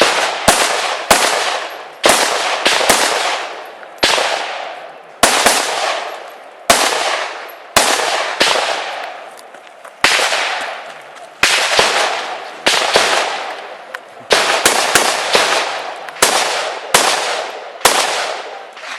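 Rifle shots from several rifles firing on a range: more than twenty sharp cracks in irregular succession, some less than half a second apart, each followed by an echo that fades over about a second.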